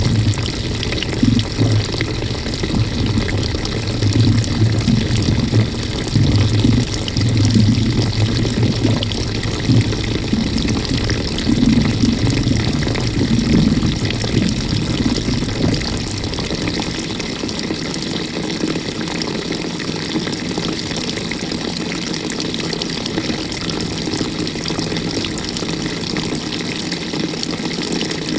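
Water sloshing and rushing inside the tub of a GE GTW220ACKWW top-loading washing machine, heard from a camera mounted on the agitator. It surges unevenly for about the first half, then settles into a steadier rush.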